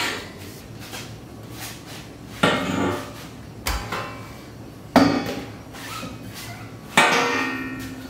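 Steel roll bar tubing clanking against the car body four times as it is manoeuvred in, each knock ringing briefly like struck metal.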